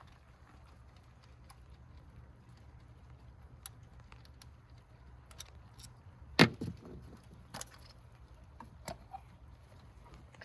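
Scattered clicks and knocks of hard plastic and metal parts being handled at the engine's ignition coils, with one sharp knock about six seconds in and a few lighter ones after it, over a low steady hum.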